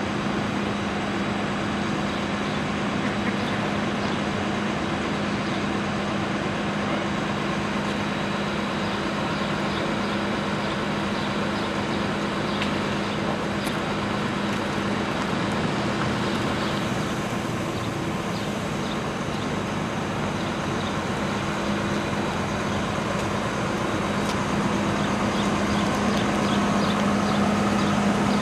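Steady low hum of idling heavy-vehicle engines over general street noise.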